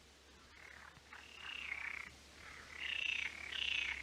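Frogs croaking in a chorus of repeated rattling calls. The calls start about a second in and grow louder towards the end.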